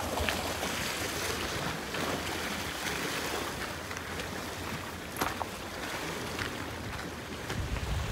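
Steady hiss of sea surf and wind, with a few faint clicks.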